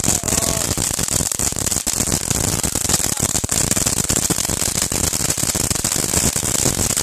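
Loud, dense crackling and popping from fireworks going off, heard as distorted static through a phone microphone that a hand is covering.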